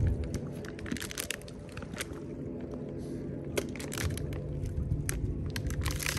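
Litter and debris crunching and crackling in short irregular clicks, over a steady low hum.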